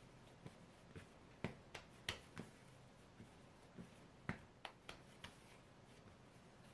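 Hands kneading and rounding soft bread dough on a wooden board: a quiet, irregular run of short taps and slaps as the dough is pressed, tucked and turned against the wood, the sharpest about a second and a half, two seconds and four seconds in.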